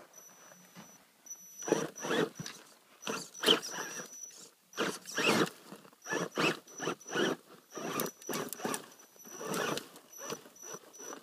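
Electric motor and geared drivetrain of an Axial Wraith radio-controlled rock crawler whirring in short, irregular bursts as it is throttled on and off while climbing, with a faint high steady whine in the pauses.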